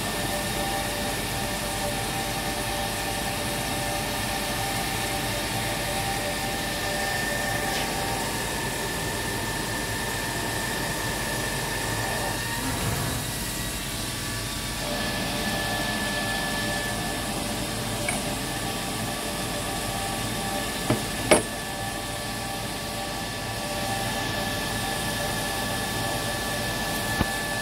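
Machine-shop machinery running: a steady mechanical noise carrying a steady high whine, which fades briefly near the middle and returns. Two sharp knocks come about three quarters of the way through.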